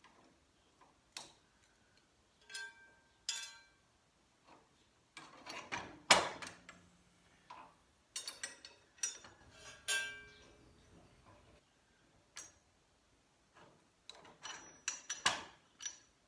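Irregular metal clicks and clinks of hitch pins being pulled from a subcompact tractor's three-point lift arms, several ringing briefly. The loudest clank comes about six seconds in, and a quick run of clinks comes near the end.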